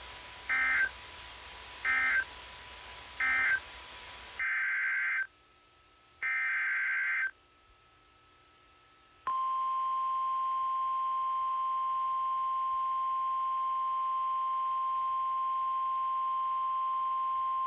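Emergency Alert System SAME data tones: three short warbling digital screeches about a second apart, marking the end of one warning message. After a cut come two longer screeches of the same data header, then the NOAA Weather Radio warning alarm. This is a single steady tone of about 1050 Hz that starts about halfway in and holds for about nine seconds.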